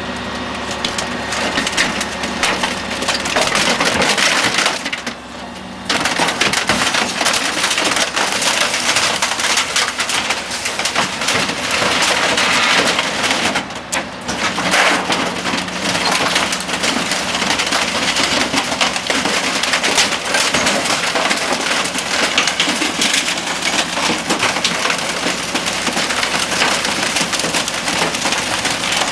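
Garbage truck compactor crushing a load of trash, with a dense, continuous crackle of plastic and glass splintering and breaking over the steady hum of the truck's engine. The crunching eases briefly twice, about five seconds in and again near the middle.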